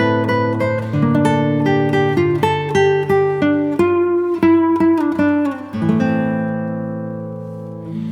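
Background music: an acoustic guitar picking a melody of quick single notes, then a held chord that rings out and slowly fades over the last two seconds.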